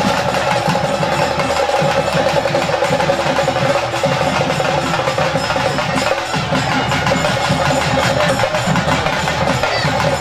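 Loud festival procession music: continuous fast drumming and clacking percussion with a steady held tone over it.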